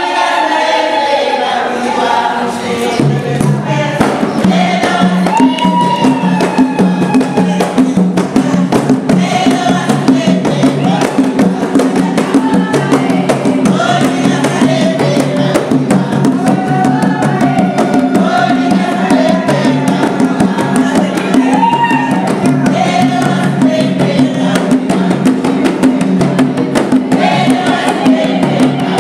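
Choir singing with drums and percussion keeping a fast, dense beat; a steady bass line comes in about three seconds in.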